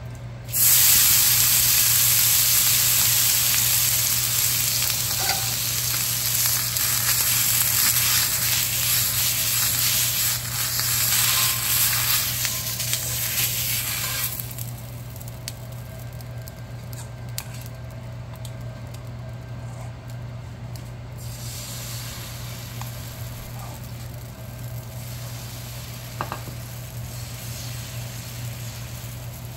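A hot cast-iron dosa pan sizzling loudly for about the first fourteen seconds, then dropping suddenly to a faint, steady hiss.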